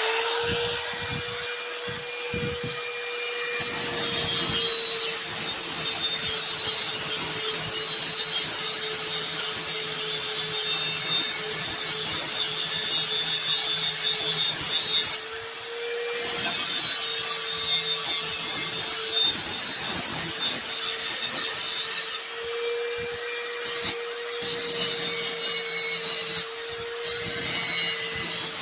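Electric grinder spinning up and grinding the cutting edge of a steel mower blade to sharpen it, a steady motor whine that dips and wavers as the blade is pressed against the wheel, with a scraping rasp of metal.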